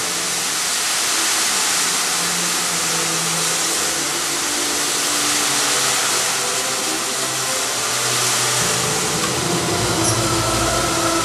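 Fountain water jets spraying and splashing back into the basin, a steady rushing hiss, with faint held musical tones underneath. A low rumble joins near the end.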